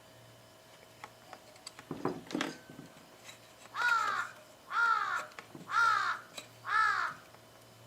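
A crow cawing four times, about one call a second, starting a few seconds in. Before the calls come a few light clicks and a low knock.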